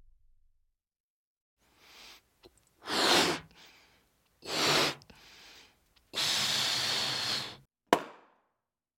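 Production-logo sound effects: two short swelling bursts of noise, then about a second and a half of steady static hiss that cuts off suddenly, followed by one sharp short burst.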